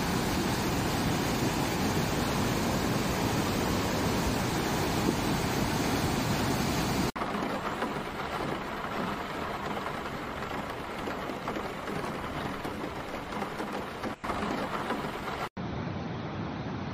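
Muddy floodwater rushing in a steady, loud noise. An abrupt cut about seven seconds in gives way to a quieter, steady hiss of rain over a flooded street. Two more cuts near the end bring back the noise of a swollen river in flood.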